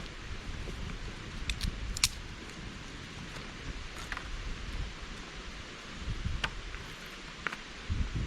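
Mountain stream running steadily, with scattered sharp clicks and light handling noises.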